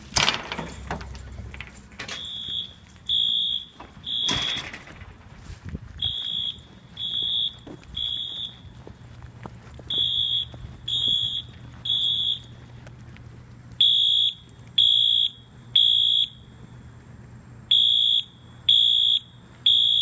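Simplex 4100U fire alarm system sounding a high-pitched tone in the temporal-three evacuation pattern: three short beeps, a pause, then three more, repeating five times and growing louder near the end. A door thuds at the start.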